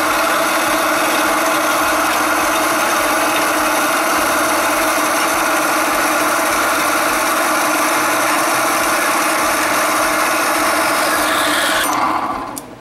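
Horizontal metal-cutting bandsaw running steadily as its freshly welded old blade cuts through metal stock clamped in the vise, a test of whether the weld holds. Near the end the saw shuts off and winds down, its pitch falling.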